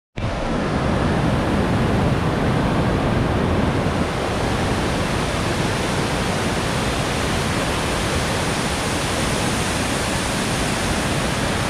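Floodwater spilling over a dam's spillway: a steady, loud rush of white water pouring over the crest and churning in the river below.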